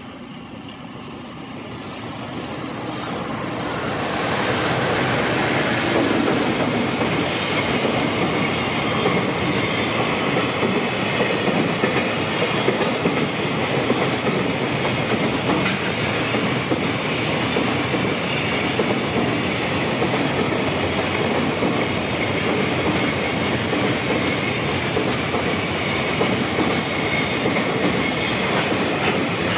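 JR Freight container train passing close by: it approaches over the first four seconds, then holds a steady, loud rumble of wheels on rail with the clickety-clack of wheels crossing rail joints. A thin, steady, high whine runs above it.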